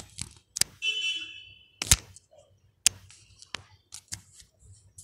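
A string of sharp clicks, with a short high electronic beep lasting about a second near the start.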